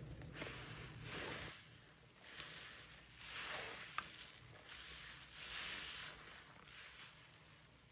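Soapy sponges squeezed and pressed in foamy water: wet squelching swells, about five of them, with a short sharp click about halfway through.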